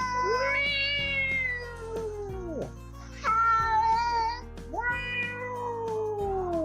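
Domestic cat giving long, drawn-out meows, about three in a row, each sliding down in pitch at the end. Background music plays underneath.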